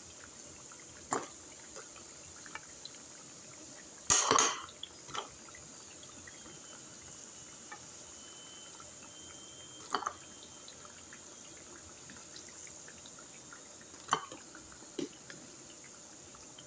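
Chicken nuggets deep-frying in a pan of oil with a steady sizzle. A metal slotted spoon clinks and scrapes against the pan a handful of times, loudest about four seconds in, as the nuggets are turned and lifted out.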